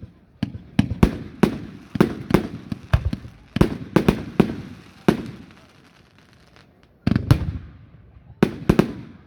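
Fireworks going off: an irregular run of sharp bangs, each trailing off in echo. A lull of about a second and a half follows, then a dense cluster of bangs and a few more near the end.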